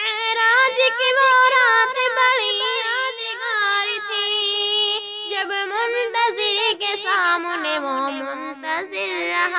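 A high solo voice singing an Urdu naat in long, wavering, ornamented notes with no clear words. Any accompaniment is too faint to show.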